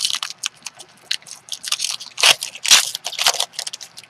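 Trading cards and their foil pack being handled: a quick run of crinkling and rustling, loudest in two bursts a little after the middle.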